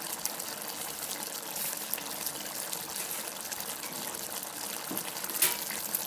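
Mutton pieces in spiced masala gravy sizzling in a steel pot on the stove: a steady hiss with small crackles and pops, and one sharper crack about five seconds in.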